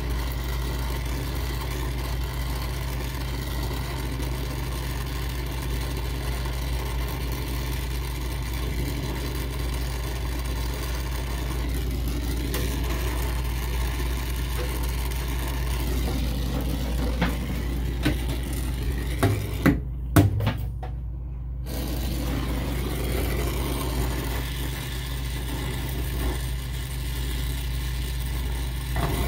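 Brazing torch flame hissing steadily as it heats a copper line joint at a refrigeration expansion valve. A few light metallic clicks come past the middle, and the hiss drops away for about two seconds about two-thirds of the way through.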